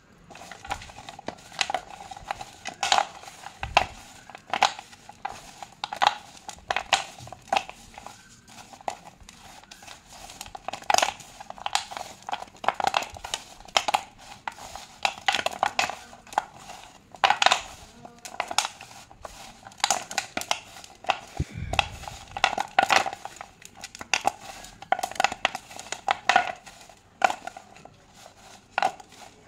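Slate pencils being crushed by hand on a plastic sheet: a dense, irregular run of crisp snaps and crunches.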